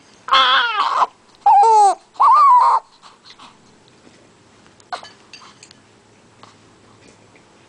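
Newborn baby crying: three short wails in quick succession in the first three seconds, the middle one falling in pitch, then quiet with only a few faint small sounds.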